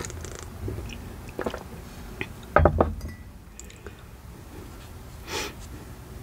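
A ceramic mug set down with a clustered clunk and clink about two and a half seconds in, with light tabletop clicks around it. A short breathy rush near the end.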